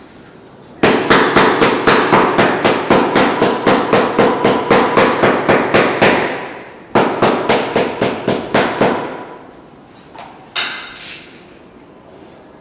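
Cobbler's hammer pounding the sole of a boot held on a shoe jack, rapid even blows about five a second. They stop briefly about six seconds in, come back in a shorter run, and give way to a couple of lighter knocks near the end.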